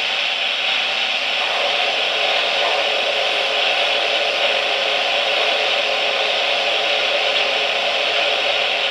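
Lionel O-gauge Hiawatha model steam locomotive moving slowly along three-rail track: a steady hissing whir with no clear beat.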